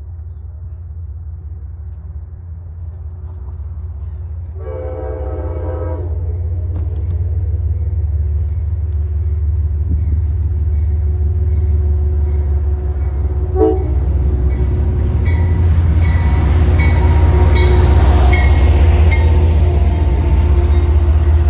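An approaching train, its rumble growing steadily louder, sounds one horn blast of about a second and a half some five seconds in. Wheel and rail noise builds near the end as it draws close.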